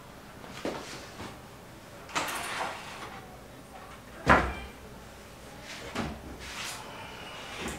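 A hand handling a white-painted wooden rack: a series of short wooden knocks and clunks as the slats and frame are touched and shifted, the loudest about four seconds in.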